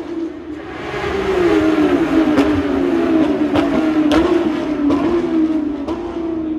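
Race car engines running at high revs as cars circuit past the corner: a steady, loud engine note that sinks slowly and then rises again, louder from about a second in, with a few sharp cracks.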